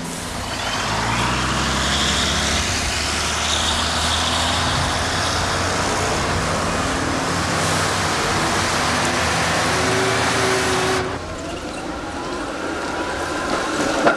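Road traffic at a street junction, with the low, steady running of vehicle engines passing close by. It cuts off suddenly about eleven seconds in. A quieter stretch follows with a faint rising whine as a tram approaches, and near the end its wheels start clattering over the rails.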